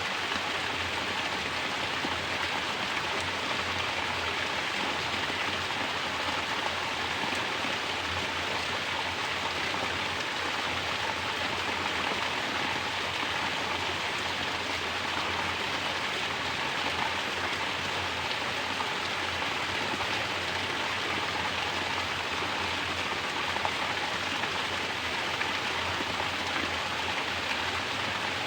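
Mountain spring water falling as a natural shower and splashing steadily, an even, unbroken spatter of falling water.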